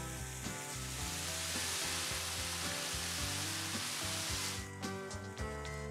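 Cremini and white button mushrooms sizzling in a very hot frying pan as balsamic vinegar is poured in. The sizzle fades sharply about four and a half seconds in.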